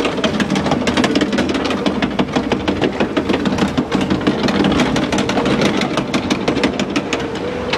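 Log flume boat being carried up the lift hill on its conveyor: a rapid, irregular clatter of clicks and knocks over a steady mechanical drone, thinning out near the end as the boat tops the lift.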